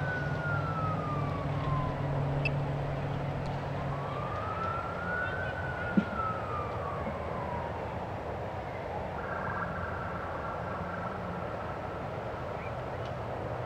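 A distant siren wailing, its pitch rising and falling slowly twice over a steady background rumble. It gives way to a steadier high note for a couple of seconds later on.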